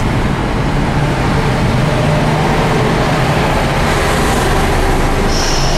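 Highway traffic and road noise heard from a moving car at its side window: a steady rush with a low drone, the sound she likens to waves. A thin high whine joins near the end.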